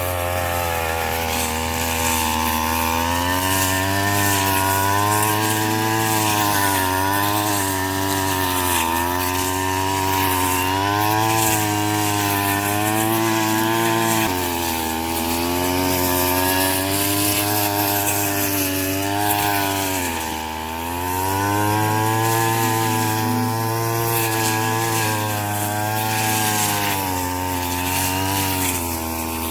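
Small two-stroke engine of a straw-cutting machine running under load. Its pitch keeps rising and dipping as the blade bites into the rice straw, with a brief dip about twenty seconds in.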